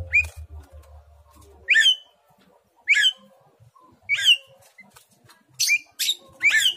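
A myna (jalak) calling in short, sharp squawking whistles, about one a second and coming faster near the end: the call of a bird in breeding condition, asking for a mate.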